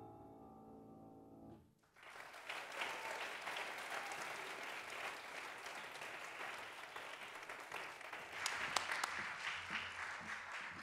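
A grand piano's last chord rings and fades out, then an audience applauds, the clapping swelling about two-thirds of the way through before thinning at the end.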